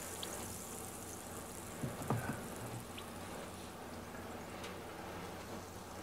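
Freshly poured watermelon soda fizzing in a cup: a soft, high hiss of bubbles that slowly fades, with a few faint ticks. There is a small knock about two seconds in.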